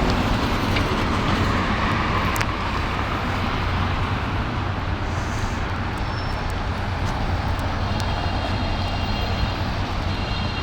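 Steady city street traffic, vehicles passing with a continuous rushing noise and a low rumble.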